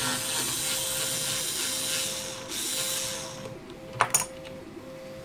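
Cordless electric screwdriver running with a hex bit, backing out a small set screw. It runs steadily for about two and a half seconds, stops briefly, then runs again for about a second. A few sharp clicks follow near the end.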